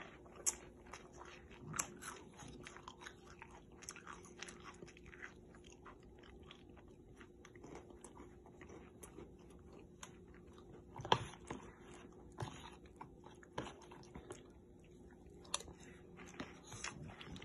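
A young child chewing crunchy Froot Loops cereal, a steady run of small crunches, with sharper clicks now and then.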